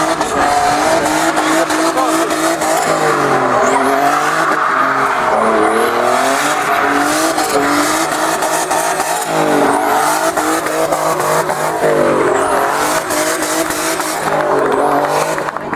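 A BMW E36 3 Series drift car's engine revving up and falling back again and again as it slides, over the steady squeal of its spinning rear tyres.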